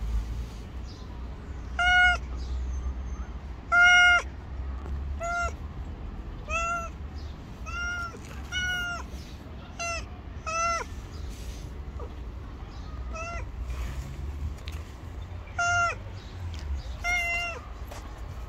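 Tabby stray cat meowing over and over for food: about eleven short meows, a second or two apart, each dropping in pitch at its end, the second and third the loudest.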